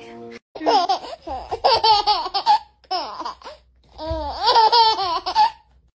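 A baby laughing hard in three high-pitched bouts of giggles with short breaths between.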